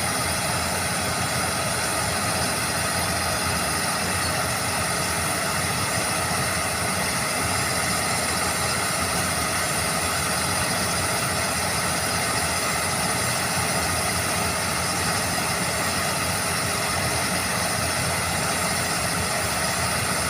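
Heavy diesel engine of an overburden drilling rig running steadily at an even pitch, with no strikes or changes.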